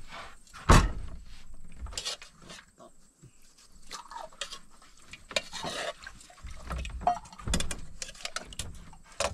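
Dishes and utensils knocking and clinking in a meal set out to eat, with a heavy thump about a second in.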